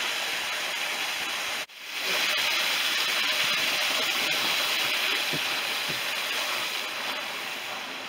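Steady rush of running water from a shallow, rocky creek. It cuts out abruptly for a moment about a second and a half in, then carries on.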